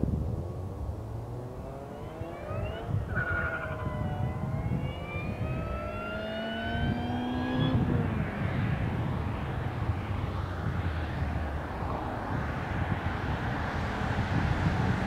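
Supercharged Cobalt SS with a catless Hahn Racecraft exhaust accelerating: a supercharger whine rises steadily in pitch over the low exhaust note and breaks off sharply about halfway through. A rushing exhaust and wind noise follows and grows louder.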